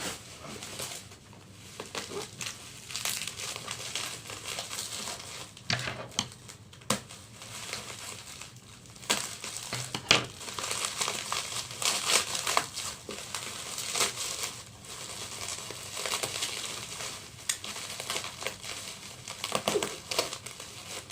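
Plastic packaging crinkling and rustling as a box is unpacked by hand, with irregular clicks and knocks, the sharpest about ten seconds in.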